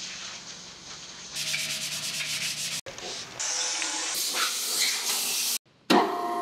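A cloth rubbing and scrubbing on the bandsaw's steel frame in quick strokes, across a few short cuts, with a stretch of hiss. Near the end the bandsaw's belt-driven electric motor switches on and runs with a steady hum.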